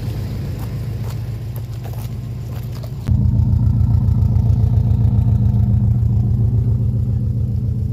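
Subaru Impreza's flat-four engine idling with a steady, evenly pulsing low rumble, which jumps louder about three seconds in as the exhaust at the rear is reached.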